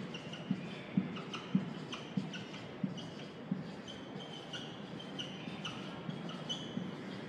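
Marker pen tapping and scratching on a whiteboard as small cells are coloured in: a tap about every half second for the first three seconds or so, then lighter, quicker scratchy strokes.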